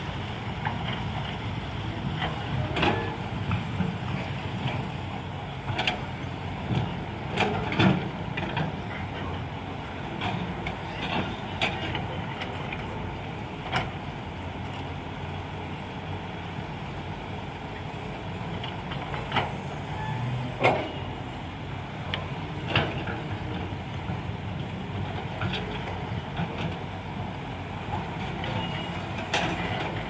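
Diesel excavator and dump truck engines running steadily, with irregular clanks and knocks as the excavator bucket tips rocky soil into the steel dump truck bed.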